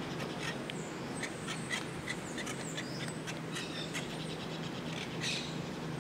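Birds calling in short, scattered chirps and squawks over a steady low hum of background noise.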